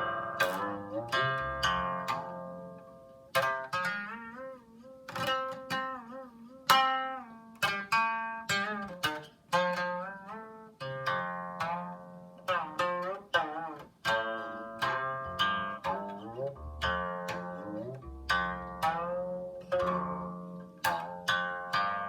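Solo Chinese zither music: a steady run of single plucked notes, each ringing and dying away. Some notes waver and bend in pitch, and a few slide.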